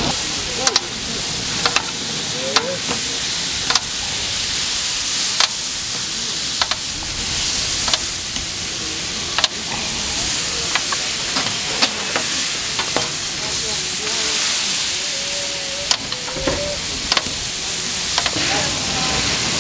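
Hotteok sweet pancakes sizzling as they fry in margarine, a steady hiss, with sharp clicks at irregular spacing about once a second.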